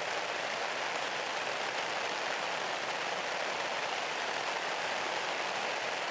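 Heavy rain falling steadily on a tent and the tarp pitched over it, an even, unbroken patter.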